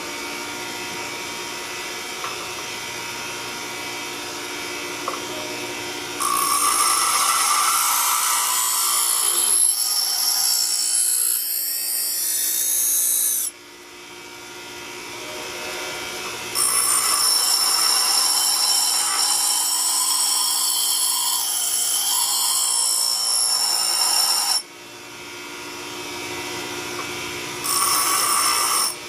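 Bench grinder's fine wheel spinning with a steady hum, then a steel railroad-spike knife blade pressed to it three times, each pass a loud, high grinding hiss lasting several seconds, with the wheel spinning freely in the short gaps between. The passes are grinding the primary edge bevel into the still-soft, unhardened blade.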